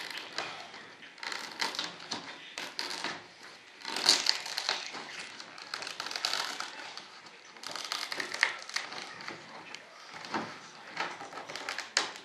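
Plastic vacuum-bagging film crinkling and crackling in irregular bursts as a cured composite flap part is peeled and pulled out of its bag by hand.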